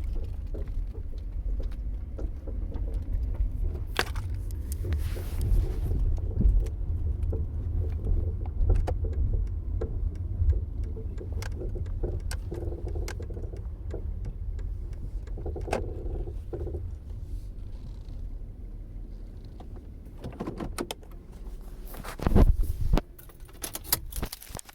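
A 2006 Toyota Camry driving, with a steady low road rumble and scattered knocks and rattles: the clunking that comes on steering and over bumps. Near the end there is a loud burst of noise and the rumble stops.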